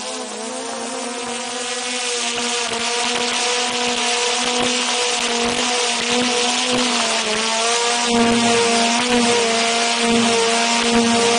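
DJI Mavic 2 Zoom quadcopter's motors and propellers whining steadily, picked up by a camera slung right beneath it, with a rushing hiss of airflow. It grows gradually louder, and the pitch shifts slightly about seven seconds in.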